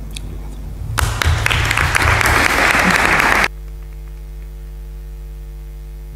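Audience and panel applauding for about two and a half seconds, the clapping cutting off abruptly; after it, a steady electrical hum from the sound system.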